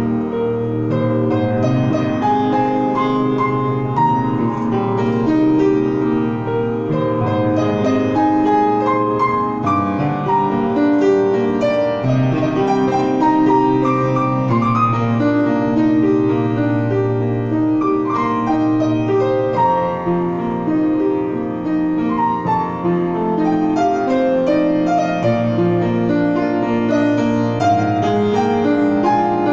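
Grand piano played solo with both hands: a melody of quick, changing notes over sustained bass notes.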